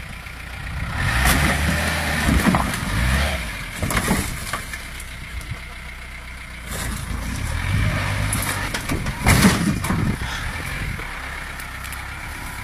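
Off-road jeep engine revving up twice under load as the jeep climbs over a sedan, with a few sharp knocks about four and nine and a half seconds in as it comes down on the car's body.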